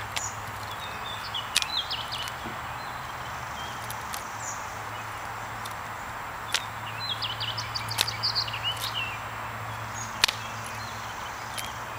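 Birds chirping in short bunches over a steady background hiss, with a few sharp clicks spaced through it.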